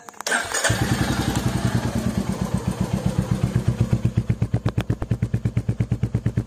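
A short noisy burst, then a motorcycle engine idling in even, rapid beats, about eight a second.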